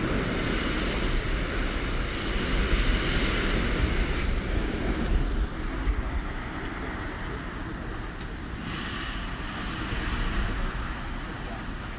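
Typhoon wind gusting past a building, a heavy rushing rumble with no rain. The gust is strongest for about the first half, then drops a few seconds in and eases to a lower rush.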